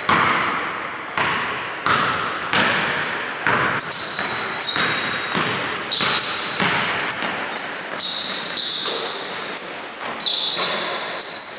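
A basketball bouncing on a hardwood gym floor in repeated thuds that echo around the hall. From about three and a half seconds in, many short high squeaks of sneakers on the court join them.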